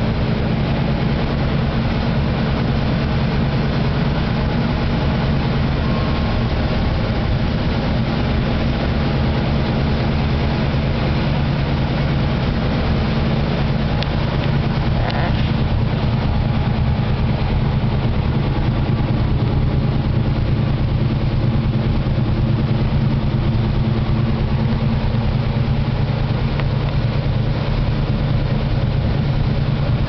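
1940 Lincoln Zephyr's V12 flathead engine idling steadily through dual exhausts, warming up after a cold start.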